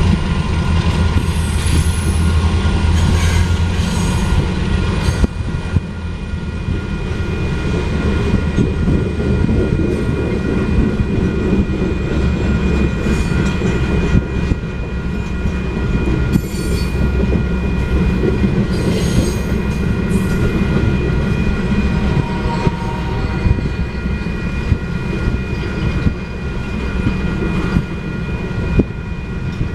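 Freight cars of a work train rolling through a grade crossing: steady steel-wheel rumble with clacks over the rail joints and some wheel squeal. A steady ringing from the crossing's warning bell runs beneath it.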